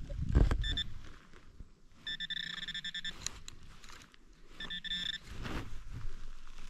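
Minelab Equinox 800 metal detector sounding a high-pitched, choppy target tone three times: briefly about a second in, longer a couple of seconds in, and again about five seconds in, as the coil sweeps over a target. The hunter expects the target to be another piece of flashing, which rings up high. Faint rustling is heard between the tones.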